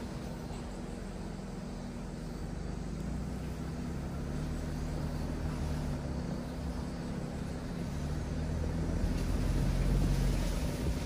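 Mitsubishi Delica D:5's clean diesel engine running steadily as the vehicle drives, with a deeper, louder rumble building near the end.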